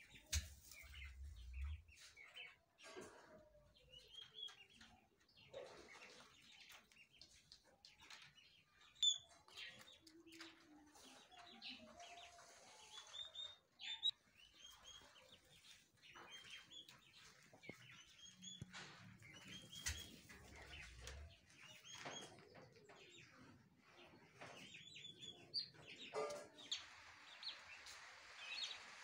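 Turkey poults peeping: many short, high chirps scattered throughout, some sliding in pitch, with occasional clicks and two brief low rumbles.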